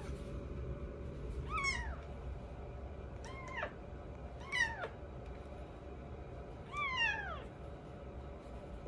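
A baby kitten mewing four times, high-pitched calls that each rise and then fall in pitch, the last one the longest.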